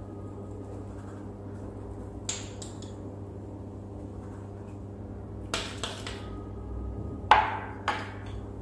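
A few light clinks of a metal spoon against a stainless-steel cooking pot, the loudest near the end, over a steady low hum.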